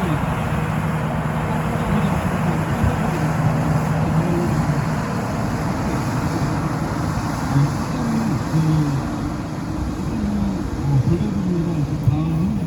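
An engine running steadily with a constant low hum and rushing noise. Past halfway the hum fades and scattered voices are heard in the background.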